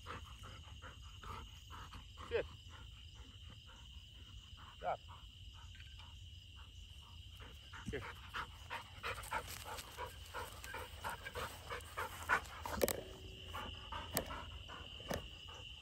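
Faint, irregular panting of a retriever dog, over a steady high insect drone.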